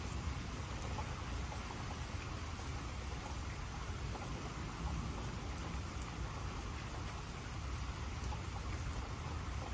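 Steady rain falling outdoors, an even hiss with a low rumble underneath.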